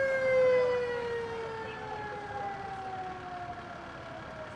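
A fire engine's mechanical siren slowly winding down: one long tone, loudest at first, that falls steadily in pitch and fades.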